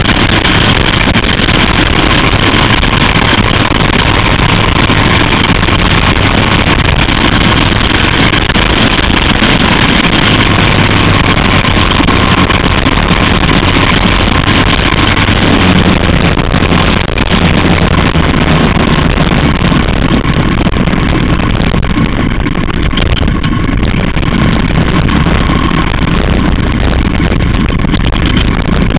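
Loud, continuous engine of a small open-cockpit racing car heard from its onboard camera, running at speed around the track, its pitch shifting as the driver works the throttle through the corners.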